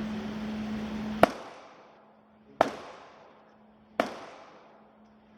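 Aero Precision EPC-9 9mm pistol-caliber carbine firing single shots at a slow, deliberate pace: three sharp shots about a second and a half apart, each trailing off in echo, with a fourth right at the end.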